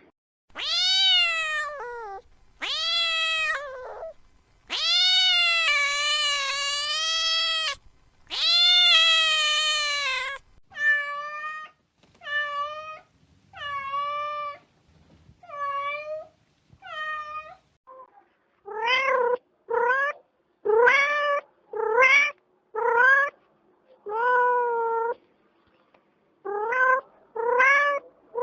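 Domestic cat meowing over and over: four long, drawn-out meows first, then a run of shorter, quieter meows, and near the end quick short meows one after another.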